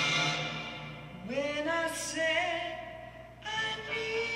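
Music playing through a Definitive Technology Sound Cylinder, a portable Bluetooth speaker with a built-in woofer: one piece fades out in the first second, and another begins with long held, wavering notes.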